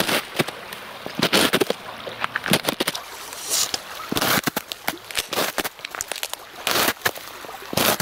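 Footsteps of hiking boots on the frozen edge of a river. Each step is a short burst of crunching and cracking ice, coming unevenly about once a second.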